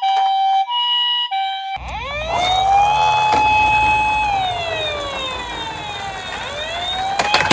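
Toy ambulance's electronic siren from its built-in speaker. It opens with the Japanese two-tone "pee-po" ambulance call, high and low notes alternating about every two-thirds of a second. About two seconds in it changes to a slow wail that rises, holds, falls and rises again, over a low rumble of the toy rolling down a wooden slope, with a few clicks near the end.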